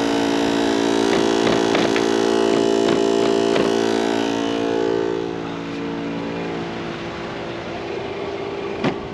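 A steady engine hum that fades about five seconds in, with several light clicks and knocks over it and one sharp click near the end.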